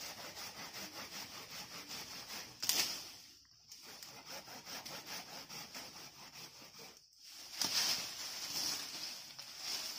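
Hand saw cutting through a green tree branch in a quick, regular back-and-forth rhythm, with a louder rasp or rustle of the branch about a third of the way in and again near the end.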